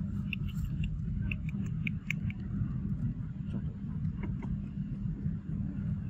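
Steady low rumble with a few faint, short high chirps and clicks over it.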